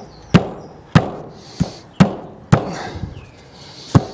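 Nails being driven into plywood soffit board overhead: six sharp strikes, about two a second, with a pause of over a second before the last.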